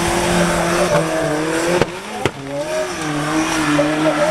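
Formula Offroad buggy's engine working hard under load as it climbs a steep sand hill, its pitch rising and falling as the throttle is worked. There is a brief dip with a couple of sharp clicks about two seconds in.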